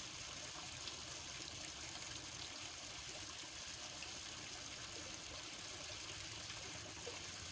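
Faint, steady trickle of creek water, heard as a soft even hiss.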